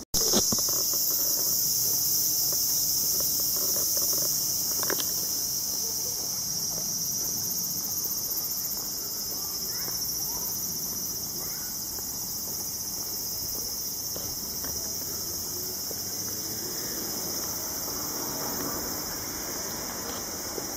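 A chorus of cicadas buzzing steadily, a high-pitched drone.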